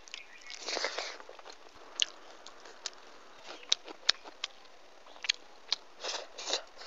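Close-miked eating sounds of a person eating rice and fish curry by hand: chewing with scattered sharp mouth clicks, and two short rustling stretches, around a second in and near the end.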